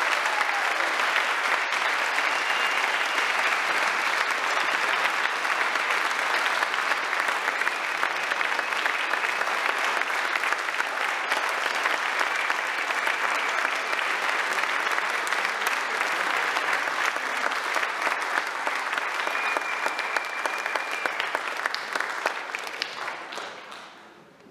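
Large audience giving a standing ovation: steady, dense applause that dies away near the end.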